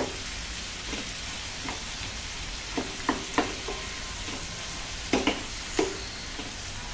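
Chopped onions and fresh tomato chunks sizzling in butter in a non-stick kadai, stirred with a wooden spatula that knocks and scrapes against the pan several times.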